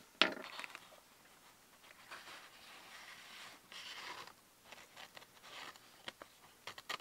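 Faint handling noise: a click near the start, then soft rustling and scraping in short patches as a model locomotive, its wagon and the box are handled, with a few light clicks near the end.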